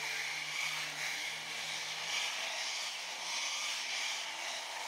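Road traffic passing close by: a lorry and several cars driving past, with tyre and engine noise and a steady low engine hum that fades about two seconds in.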